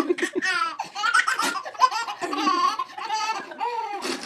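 A young child laughing, a run of high-pitched laughs one after another.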